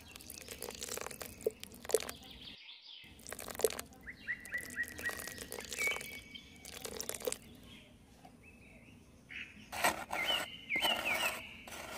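Small birds chirping in quick runs in the background, over soft tapping and scraping as wet cement is poured from a small metal bowl and worked with a small trowel. The scraping is densest near the end.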